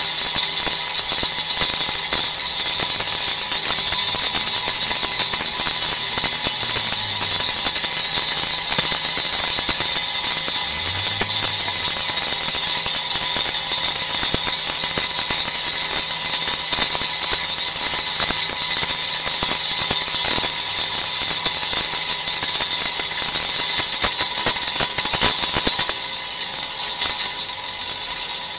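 DBL 3000 on-car brake disc lathe running, spinning a brake rotor on the hub and machining its faces: a steady high-pitched hiss with a constant motor whine. It gets somewhat quieter a couple of seconds before the end.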